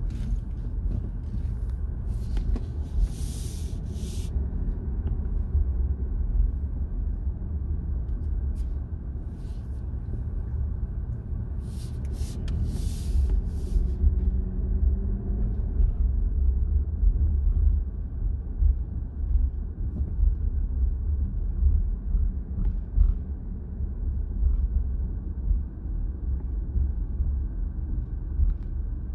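Car driving slowly, heard inside the cabin: a steady low rumble of engine and road noise, with two short hissing noises about three and thirteen seconds in.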